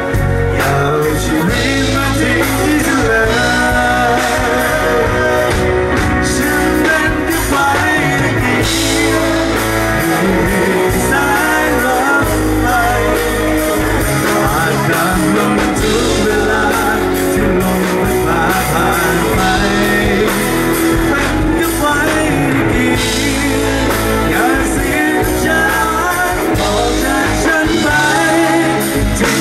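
A male vocalist singing a pop-rock song live through a PA system, backed by a live band with a drum kit.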